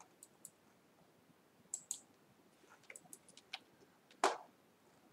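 Scattered clicks of a computer mouse and keyboard, a few sharp ticks with a small flurry around three seconds in and one louder, heavier click about four seconds in.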